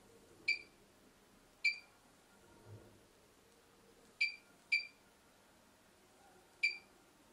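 Touchscreen control panel of an LY 5200 BGA rework station beeping once per key press as text is typed on its on-screen keyboard: five short, high beeps of the same pitch, two of them close together a little past four seconds in.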